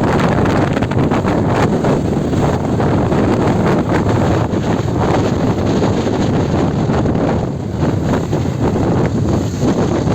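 Wind rushing and buffeting over the microphone of a moving motorcycle, with a steady rumble of vehicle and road noise beneath it.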